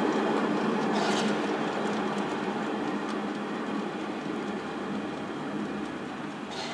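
Kittel steam railcar and its coach running away along the track: a steady rumble that fades as the train recedes, with two short hisses, about a second in and near the end.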